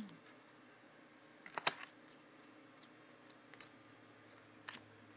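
Trading cards handled in the hands during a pack opening: a few light clicks and snaps as cards are flipped, the loudest cluster about a second and a half in, then lighter single clicks spaced a second or so apart.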